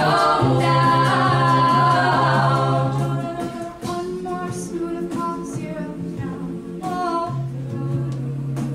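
A cappella vocal group singing in layered parts, voices only, with a held low bass note under the harmonies that drops out about three seconds in and comes back near the end.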